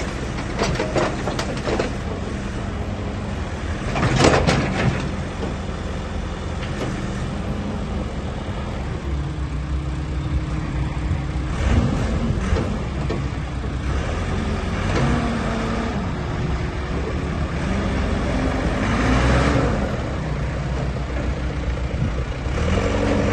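Komatsu 266D backhoe loader's diesel engine running, its pitch shifting up and down, with several sharp knocks in the first second or so and again about four seconds in.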